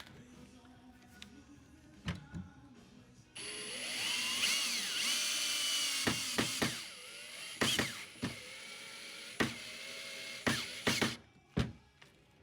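Power drill starting about a third of the way in, its whine rising in pitch and then holding steady for several seconds, with a few sharp clicks and knocks before it stops near the end.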